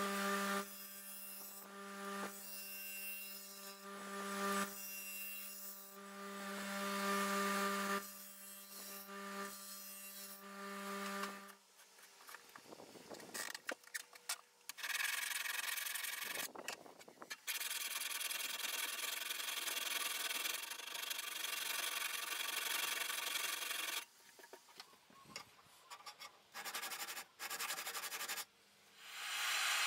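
Bench grinder running with a steady hum while a carbon-steel blade cut from a lawn mower blade is pressed to the wheel in repeated grinding passes; the grinder stops about eleven seconds in. Then hand filing and sanding strokes rasp along the steel blade, continuous at first and in short separate strokes near the end.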